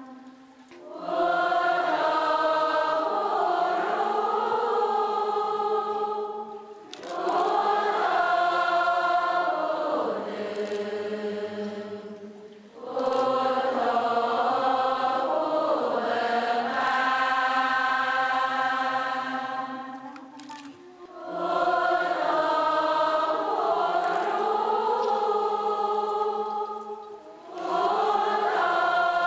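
Buddhist devotional chanting: voices singing a slow, melodic line together in long held phrases of five or six seconds, with short breaks between phrases.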